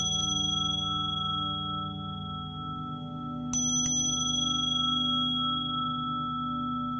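Meditation music of Tibetan singing bowls: low tones hold steady with a slow throb. A small high-pitched bell is struck just at the start and twice in quick succession about three and a half seconds in, each strike ringing on brightly.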